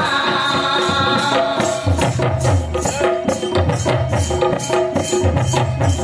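Live folk music for a stage dance: drums and jingling percussion beating a fast, steady rhythm under a repeating melody.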